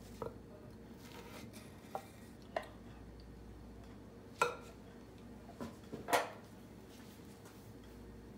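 A few light metallic clinks and knocks from a cooking pot and utensils being handled, spaced irregularly about a second apart, the loudest about four and a half and six seconds in, over a faint steady hum.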